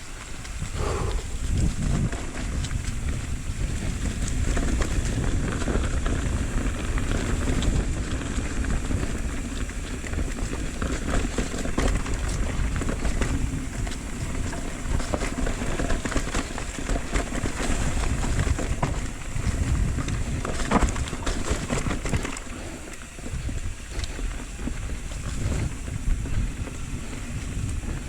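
Wind buffeting the microphone as an electric mountain bike rolls along a dirt trail, with frequent small clicks and rattles from the bike over bumps.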